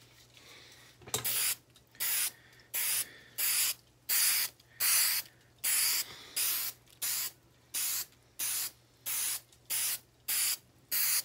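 Aerosol can of spray adhesive sprayed in short, evenly spaced bursts: about fifteen quick hisses, one roughly every two-thirds of a second, starting about a second in.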